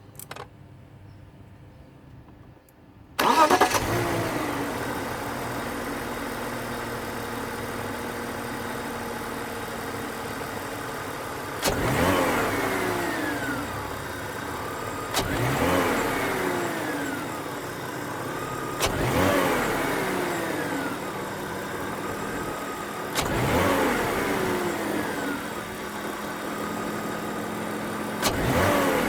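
BMW E39's M54B22 2.2-litre straight-six starting about three seconds in, then idling, with five sharp throttle blips, each a quick rise and fall in revs. Knocks come on the sudden throttle openings, which the owner likens to detonation.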